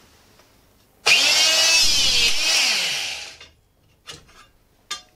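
VEVOR MHP-20 900 W electric hydraulic hole punch switching on with a sudden start about a second in and running for about two and a half seconds as it drives a 20 mm punch through steel flat bar, its pitch falling as it loads up before it stops. A few light clicks follow.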